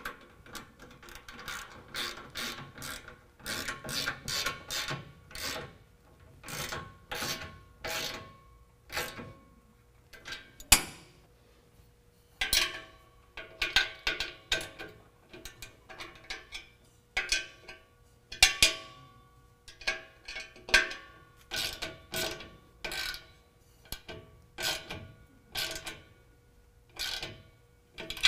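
Socket ratchet wrench clicking in runs of quick strokes as it tightens the exhaust-tip clamp bolts, with short pauses between runs. One sharper knock about eleven seconds in is the loudest sound.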